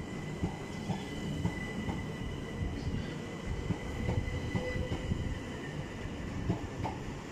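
Southern Class 377 Electrostar electric multiple unit moving past along the platform: a low rumble with irregular knocks from the wheels and a steady high whine.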